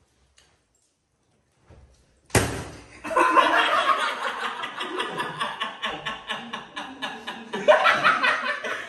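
Near silence, then a single sharp smack about two seconds in, followed by a group of young men laughing loudly together, many voices overlapping.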